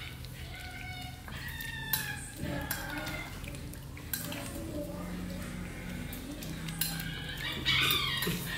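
Puppies whining: a series of short high-pitched cries, several in a row, the loudest near the end.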